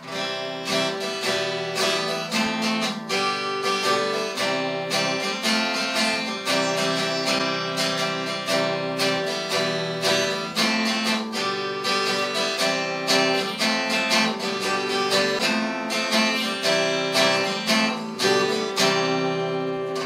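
Intro music: an acoustic guitar playing a steady strummed tune, with regular strokes about twice a second.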